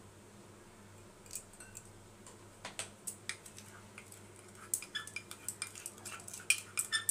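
Light clinks and taps of a ceramic tea cup and a spatula against a glass mixing bowl as powdered sugar is emptied out of the cup. The clicks come sparsely at first and grow more frequent in the second half.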